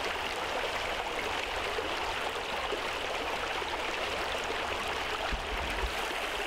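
A stream's water running steadily, an even rushing sound with no breaks.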